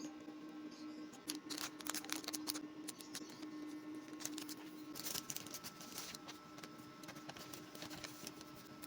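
Scissors cutting paper: a run of crisp snips and paper rustles, busiest in the first few seconds and again about halfway through.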